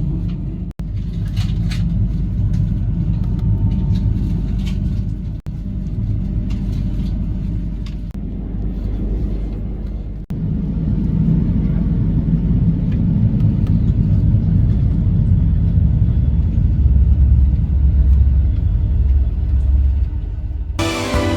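Steady low rumble of a moving train heard from inside the carriage, broken by three sudden brief drops in sound about 1, 5 and 10 seconds in. Music starts right at the end.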